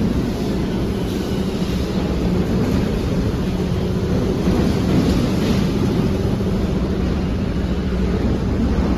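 Steady low mechanical rumble with a constant hum running through it.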